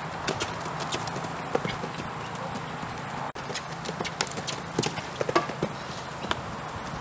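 Standardbred horse cantering on a dirt surface, its hoofbeats coming in quick uneven groups over a steady hiss. The sound drops out for an instant about three seconds in.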